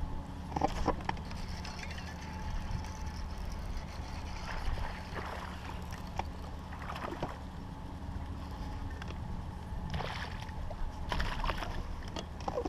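Small fishing boat on the water: a steady low hum with scattered light knocks and creaks of gear against the hull.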